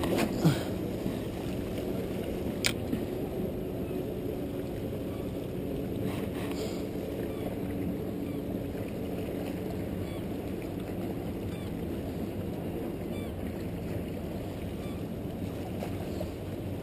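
Steady low rush of wind and water at a rock jetty, with a faint steady hum underneath and a single sharp click about two and a half seconds in.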